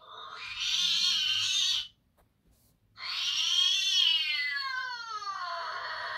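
A cat meowing twice: a short call, then about three seconds in a long drawn-out meow that rises and then falls in pitch.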